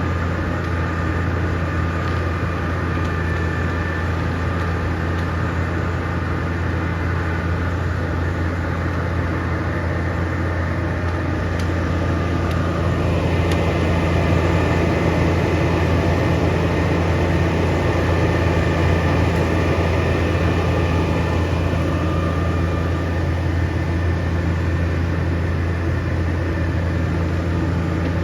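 Komatsu D68ESS crawler bulldozer's diesel engine running with a steady low drone, growing a little louder about halfway through.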